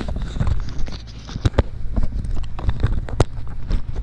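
Camera handling noise: a quick string of knocks and clicks on the microphone as the camera is taken out of its case, with footsteps in snow.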